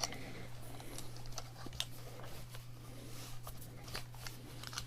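Faint handling noises: scattered small clicks and soft rustling over a steady low electrical hum.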